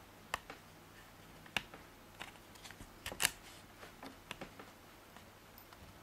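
Small irregular clicks and taps of a DDR3 SO-DIMM memory module being fitted by hand into the lower RAM slot of a MacBook Pro, the sharpest click about three seconds in.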